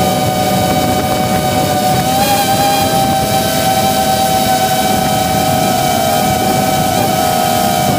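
Electric motors and propellers of a 3-inch FPV racing drone whining steadily in flight, heard from the drone itself, over a hiss of rushing air; the pitch rises a little about two seconds in as the throttle changes.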